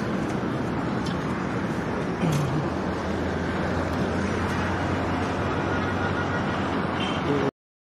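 Steady outdoor background noise with a low engine-like hum that sets in about two seconds in, and a few faint clicks; the sound cuts off abruptly near the end.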